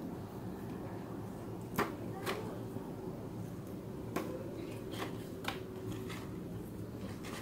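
Pruning scissors snipping rosemary stems: about six short, sharp snips spread out a second or so apart, the loudest about two seconds in, over a steady low hum.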